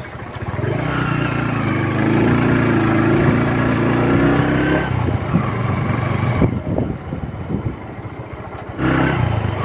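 Motorcycle engine running under way as the bike is ridden. The engine note picks up about half a second in and holds steady, eases off around five seconds in to a quieter stretch with some knocks, then comes back strongly near the end.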